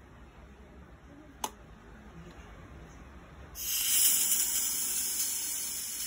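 Sweet Alice SW-CRM2001 espresso machine venting steam, a loud high hiss that starts suddenly a little past halfway and slowly fades. Earlier, a single light click.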